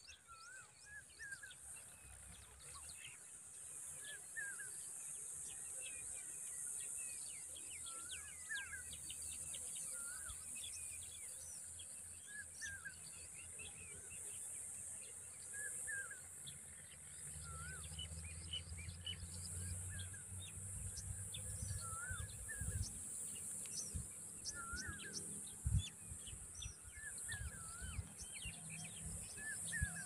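Birds calling: short wavering notes repeated every second or two, with many quick high chirps over a steady high hiss. A low rumble with occasional knocks comes in about halfway through.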